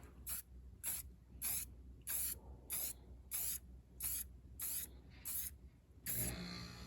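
Aerosol rattle can of Rust-Oleum self-etching primer sprayed in short, quick puffs: about ten brief hisses, roughly one every half second.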